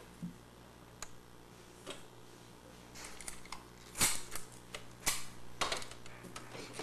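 Scattered clicks and taps of small plastic parts being handled and set down on a wooden table, with two louder knocks about four and five seconds in.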